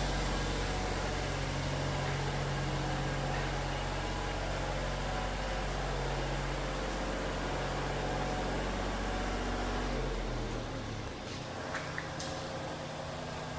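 Miller Big Blue 400D diesel engine-driven welder running steadily, its sound fading and dropping away about ten seconds in. A couple of faint clicks come near the end.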